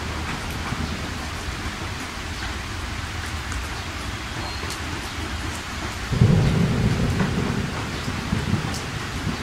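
Rain falling steadily as an even hiss. Low rumbling comes in suddenly about six seconds in and rises and falls unevenly.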